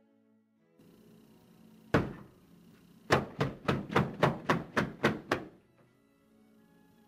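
Hands slamming down on a cloth-covered table and a plate of leafy greens: one heavy thump about two seconds in, then a rapid run of about nine thumps, about four a second. Faint background music plays underneath.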